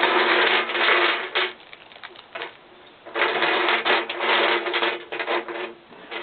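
Plastic model-kit pieces and their plastic packaging being handled, a dense crinkling, rattling rustle in two long spells with a short burst near the end.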